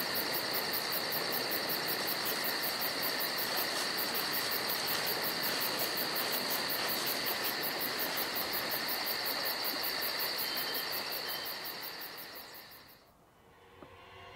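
Insects trilling steadily, high-pitched with a fast even pulse, fading out over the last couple of seconds; faint music comes in at the very end.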